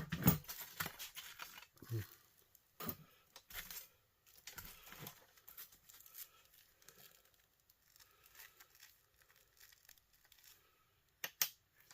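Small parts of an electric heater being handled and pulled apart: rustling, tearing and scraping of plastic and wire, with a few sharp clicks about three seconds in and near the end.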